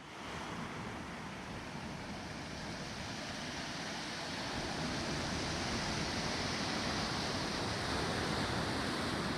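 Steady wash of ocean surf on the shore, slowly growing louder.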